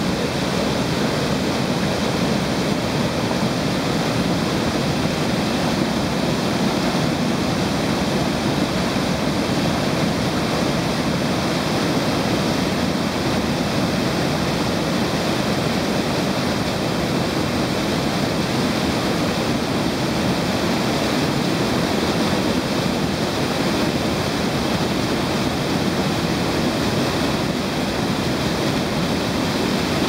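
Small waterfall with water cascading and splashing over large boulders: a steady, unbroken rushing.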